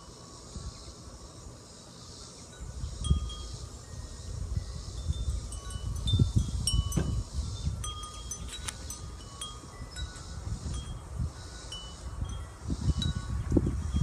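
Wind chimes ringing, scattered single notes at several different pitches, over a bumpy low rumble on the microphone that starts about two and a half seconds in.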